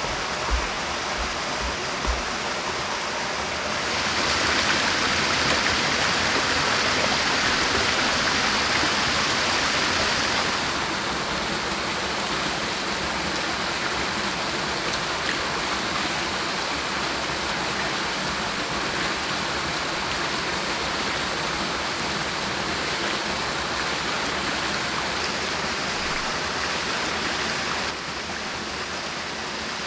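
Water pouring in a steady splashing rush from a bamboo tube onto a mound of soil, over the flow of a stream. The rush is louder for about six seconds in the first third. A few soft thumps in the first two seconds come from clods of soil being crumbled by hand.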